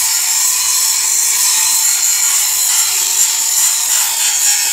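A power tool running steadily, a loud, even hiss that does not let up.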